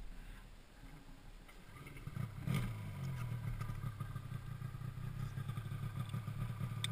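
A snowmobile engine comes on about two seconds in, with a short sharp knock just after, and runs at a steady idle.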